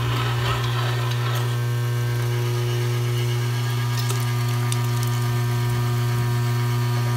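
Weston No. 12 electric meat grinder running with a steady hum, grinding meat trimmings through a 7 mm coarse plate.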